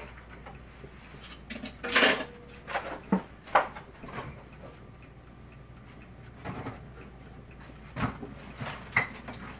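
Kitchen dishes and utensils being handled: a scatter of knocks and clinks, the loudest about two seconds in with a brief ring, more around three and a half, eight and nine seconds.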